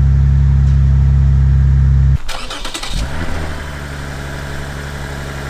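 A 2006 Lexus IS350's V6 engine running at a loud, steady idle through a freshly fitted exhaust, on its first startup to check for leaks. About two seconds in, the sound drops abruptly to a quieter, rougher engine sound, with a short burst of noise.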